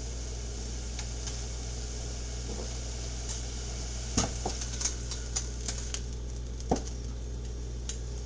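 Light clicks and knocks of a kitchen utensil being picked up and handled among the frying pans on a stovetop, the sharpest a little after four seconds in and again near seven seconds, over a steady low hum.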